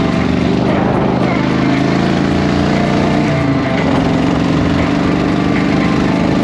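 Air-cooled V-twin engine of a 1999 Yamaha Road Star 1600 motorcycle running steadily, its pitch shifting slightly about three seconds in.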